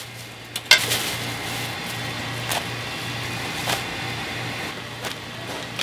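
Plastic bag of chopped green onions being handled and emptied over a pot of tteokbokki: rustling, with a sharp knock about a second in and a few lighter knocks after. A low pulsing hum runs underneath.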